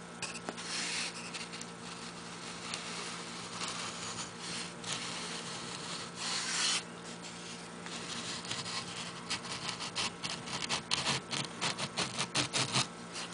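Le Page toy outboard's small 6-volt electric motor running with a steady hum, under irregular rubbing and scraping noises; near the end a quick, uneven run of sharp clicks and rattles.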